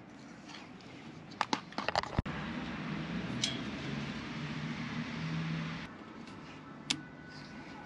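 Hand work on a van heater's wiring and fuel pump: a quick run of sharp clicks from a plastic electrical connector being handled and fitted, then a steadier rushing noise with a low hum and one more click near the end.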